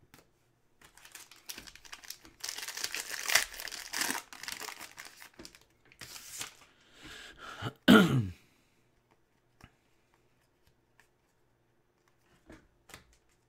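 Foil wrapper of a Panini Prizm football hobby pack crinkling and tearing as it is ripped open, for several seconds. About 8 s in comes a brief, louder vocal sound falling in pitch, like a cough. Near the end there are a few faint clicks as the cards are handled.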